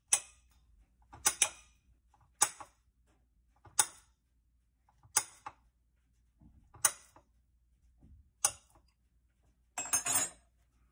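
Kitchen knife slicing a banana on a glass plate, the blade clinking sharply against the glass with each cut, about once every second or so, with a longer clatter of clinks near the end.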